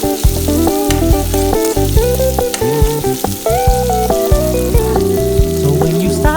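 Background pop music in an instrumental passage, a melody over a pulsing bass, with a steady sizzle of food frying in hot oil beneath it.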